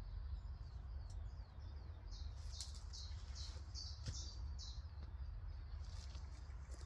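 A songbird singing in woodland: a run of about six short, high notes in the middle, with a few other chirps around it, over a steady low rumble.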